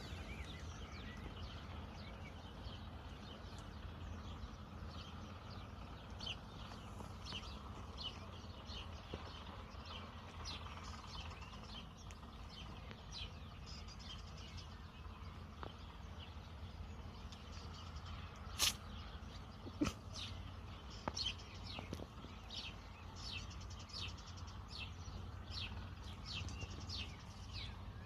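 Small birds chirping repeatedly, short quick falling chirps over a steady low hum. Two sharp clicks stand out about two-thirds of the way through.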